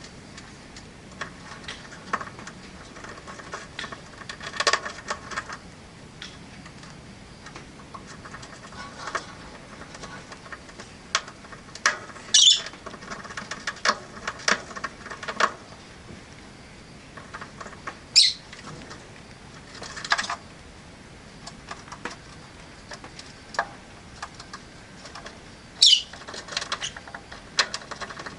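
Rosy-faced lovebirds in a cage: a run of short chirps, clicks and rustles, with four loud, shrill calls at about 12, 18 and 26 seconds in and near the end.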